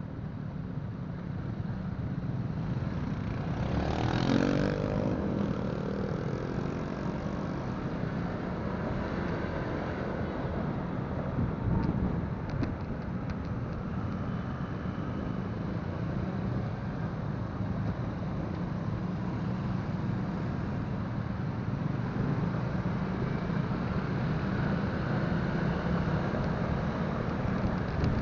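Motorcycle being ridden on the open road: steady engine and road noise. About four seconds in there is a brief louder sweep whose pitch falls away.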